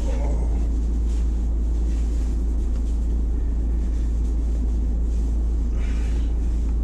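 Steady low rumble of storm-force wind buffeting a parked van, heard from inside the cabin. A brief rustle about six seconds in as a cap is handled.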